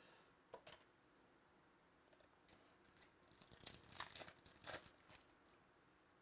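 A foil trading-card pack wrapper being torn open and crinkled by hand, a dense burst of crackling from about three to five seconds in, after a couple of light clicks near the start.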